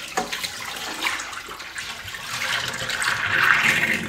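Brine being poured off a stainless-steel bowl of pheasant pieces into a steel kitchen sink, water splashing and running down the drain, growing louder about three seconds in.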